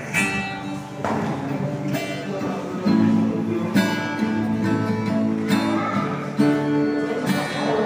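Acoustic guitar strummed in chords, about one stroke a second, each chord ringing on between strokes.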